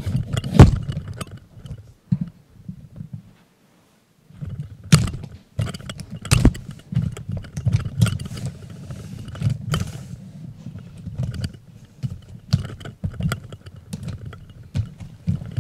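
Handheld camera handling noise: irregular clicks and knocks over a low rumble as the camera is moved about, dropping out to silence for under a second near the middle.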